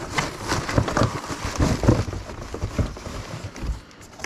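Cardboard shipping box being handled: the flaps are pulled open and a heavy boxed airsoft gun is slid out against the cardboard, giving a run of irregular thumps, scrapes and rustles.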